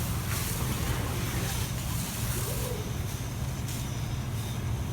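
A boat engine running steadily with a low rumble, under a constant hiss of outdoor noise.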